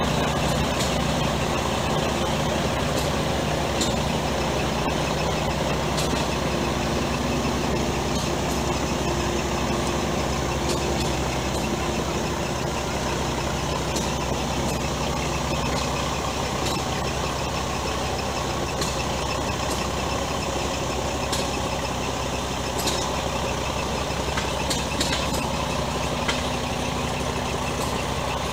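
An engine running steadily, a low, even hum with a few faint clicks scattered through it.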